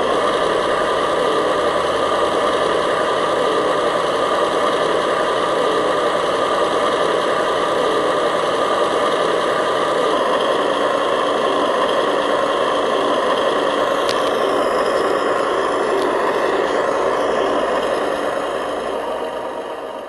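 Remote-control model construction machine's electric motor and gearbox running steadily with a constant whine, fading out near the end.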